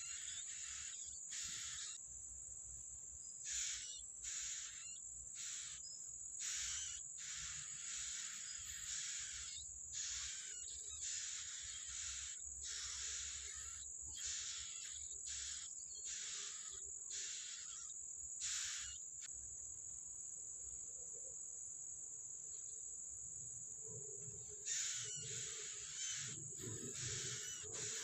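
Yellow-bellied prinia nestlings begging in the nest: short raspy, hissing calls about once a second, with a pause of several seconds past the middle. A steady high-pitched insect drone runs underneath.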